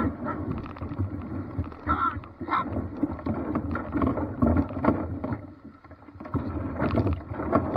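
Paddled small boat on a river: irregular water and hull noise with scattered knocks, and muffled voices now and then.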